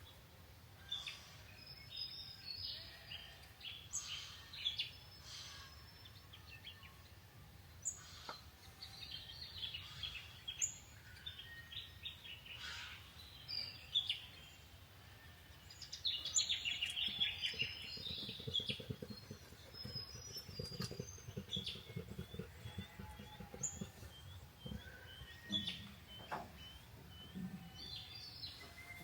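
Several small birds chirping and singing in many short overlapping notes; near the end one bird repeats a short hooked note about every half second. About halfway through, a low rough rumble sits under the birdsong for several seconds.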